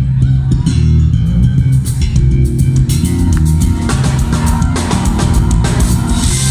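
Live band playing: electric bass guitar lines over a drum kit, the cymbals growing louder from about four seconds in.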